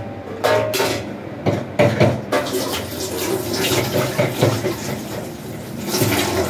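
Kitchen tap running into the sink while hands rinse something under the stream, with a few knocks and clatters in the first couple of seconds.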